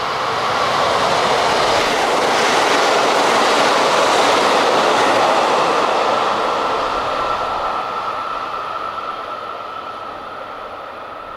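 A KiHa 85 diesel limited-express railcar set, with its Cummins diesel engines and wheels on the rails, passing through at speed without stopping. The sound builds to a peak a few seconds in, then fades steadily as the train moves away, leaving a thin steady high ringing tone.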